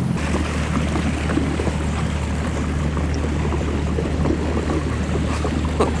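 Boat motor running at speed underway with a steady low drone, over a constant rush of wind and water.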